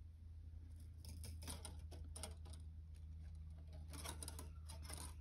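Thin wrapping wire being pulled through the coils of a wire-wrapped cuff bracelet: faint scratchy rustling and ticking, in a cluster about a second in and another around four seconds in.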